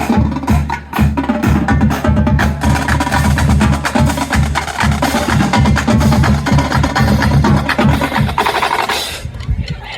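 Marching band drumline playing a cadence, with fast snare and rim clicks over bass drums. It stops about nine seconds in.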